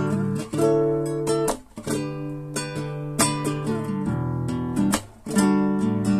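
Nylon-string classical guitar strumming chords, each chord struck sharply and left to ring, with a brief drop in sound just before some of the new strums.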